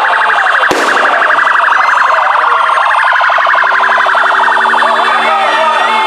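Electronic siren wailing in a fast pulsing warble, with a single sharp bang about a second in. A steady horn-like tone joins midway.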